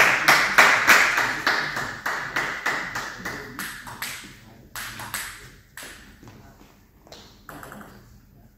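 Table tennis ball tapping in a quick, even run of clicks, about three a second, that fade away over several seconds, followed by a few scattered fainter taps.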